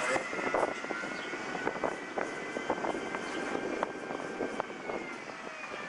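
City background noise with a steady high-pitched whine in two tones that drift slightly in pitch, and scattered short sharp taps.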